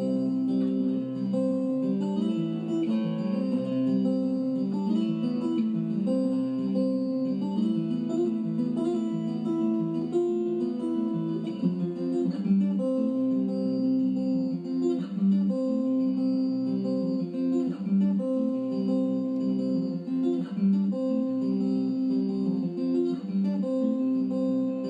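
Background music: acoustic guitar playing a steady strummed and picked tune.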